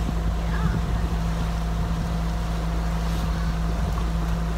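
Passenger boat's engine running with a steady low drone, with wind on the microphone and the wash of water along the hull.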